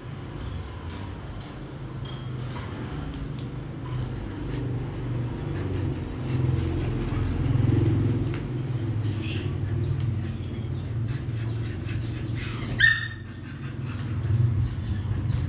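Phu Quoc ridgeback dogs courting, a female in heat being mounted, with a low steady rumble underneath. One short, sharp dog yelp comes near the end.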